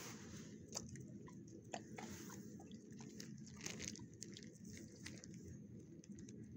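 Dog mouthing and licking at the wire kennel panel close to the microphone, giving scattered small sharp clicks and smacks over a steady low hum.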